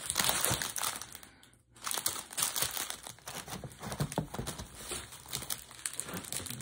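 Packaging crinkling and rustling as items are handled and pulled from a box, in irregular bursts with a short lull about a second and a half in.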